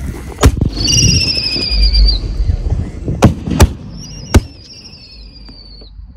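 Whistling serpent salute shells going off: sharp, very loud bangs, four in all, spread over the first four and a half seconds, along with a low thump. Two high whistles come with them: a slightly falling one about a second in, and a wavering one from about four seconds on.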